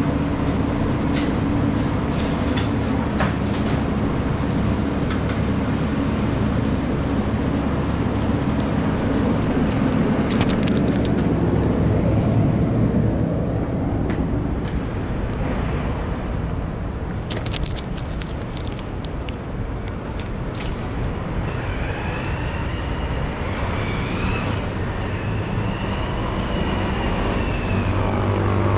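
Steady low rumble of a motor vehicle's engine in city street ambience. It is strongest in the first half and eases a little later on, with a few light clicks and, near the end, a faint high whine that rises and falls.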